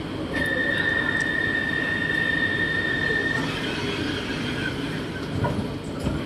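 Purple Line metro train running on the elevated track, heard from inside the car. A steady high-pitched wheel squeal sets in just after the start and holds for about three seconds over the running noise.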